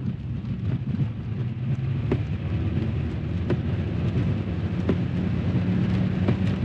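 Car driving, heard from inside the cabin: a steady low rumble of engine and road noise, with occasional light ticks and knocks.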